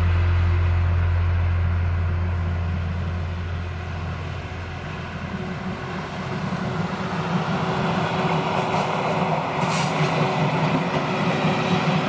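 Old red electric railcar approaching on a single-track branch line. A low steady hum fades away over the first few seconds, then the rumble of its wheels on the rails grows louder, with a few sharp clicks near the end.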